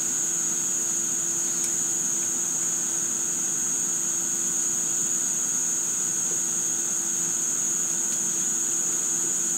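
Steady electrical hum with a constant high-pitched whine, unchanging throughout, and one faint tick a little under two seconds in.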